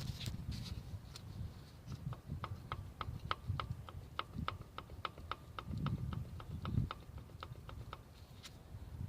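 Rapid, regular metallic ticking, about four to five ticks a second, over a low steady rumble; the ticking starts about two seconds in and stops near the end.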